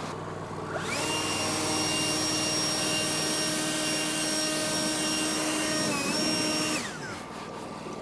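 Handheld leaf blower spinning up about a second in and running steadily with a high whine, blowing sawdust off the sawn log. It dips briefly near the end, then winds down. The sawmill's engine idles steadily underneath.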